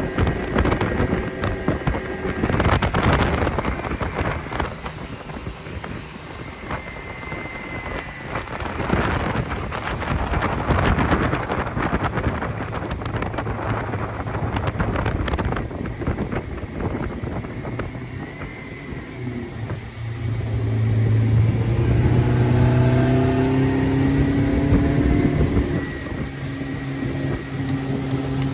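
Mercury 115 outboard running the boat under way, over steady wind and water rush with surging gusts. About twenty seconds in, the engine note comes up loud and steady, edging slightly higher.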